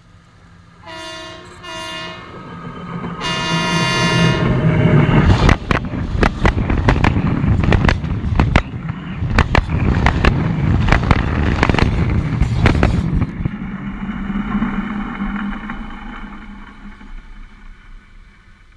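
Passenger train sounding its horn in two short blasts and then a longer one as it approaches. It then rolls directly over the microphone lying between the rails, loud with a run of sharp wheel clacks, and the rumble fades as it moves away.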